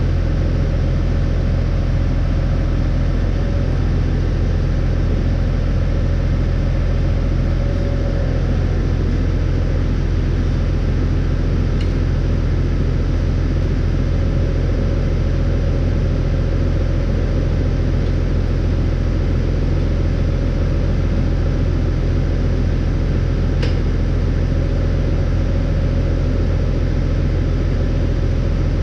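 Tractor's diesel engine idling steadily with a deep, even hum, heard close up at the rear wheel. A couple of light clicks come through it near the middle and later on.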